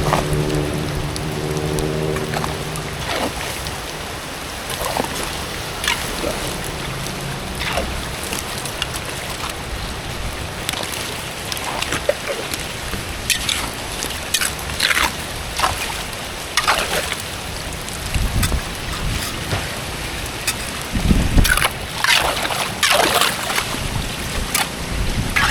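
Water sloshing and splashing at a blocked culvert being cleared, with irregular splashes over a steady wash of moving water, busiest about two-thirds of the way in and near the end.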